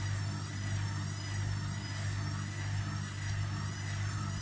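Steady low machine hum from a running motor, with a faint high whine that wavers up and down.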